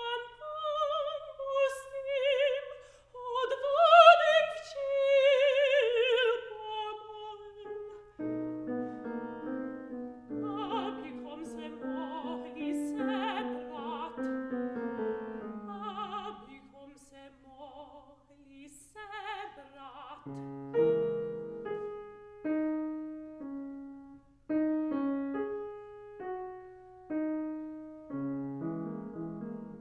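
Operatic soprano singing with wide vibrato over grand piano accompaniment, ending on a long held note about eight seconds in. The piano then carries on, closing with a run of separate notes and chords that each ring and fade.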